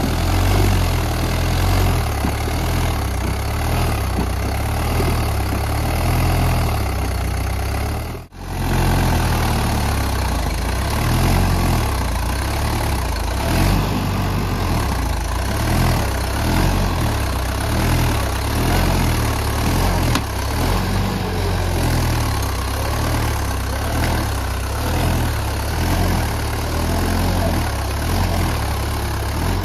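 Swaraj 843 tractor's diesel engine running steadily, its level swelling and dipping a little. The sound cuts out abruptly for a split second about eight seconds in.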